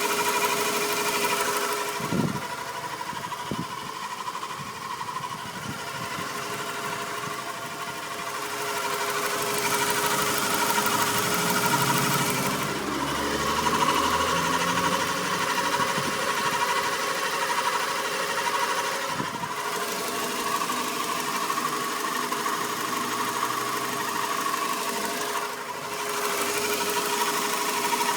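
Fiat Punto running with a continuous mechanical noise, steady whining tones over the engine sound that shift in pitch now and then; the owner calls it horrible.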